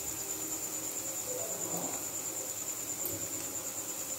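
Cricket trilling, a steady high-pitched pulsing chirp.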